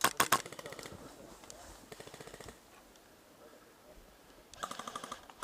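Airsoft electric guns firing on full auto: a rapid burst of sharp clicking shots cuts off just after the start, and a second, quieter burst comes near the end.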